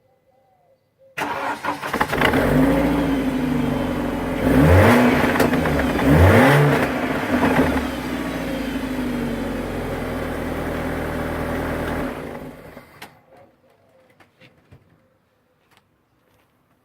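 BMW E46's engine starting about a second in, then idling with two quick revs in the middle, and switched off after about eleven seconds.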